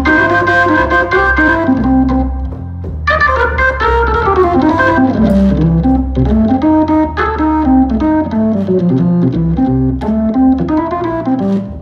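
1957 Hammond B3 organ played through its Leslie 122 rotating speaker: held chords over a low bass line, with a quick run of notes falling down the keyboard about three seconds in.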